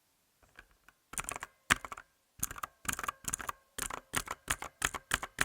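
Mechanical keyboard with clicky blue switches being typed on: a few faint taps, then quick runs of sharp clicks.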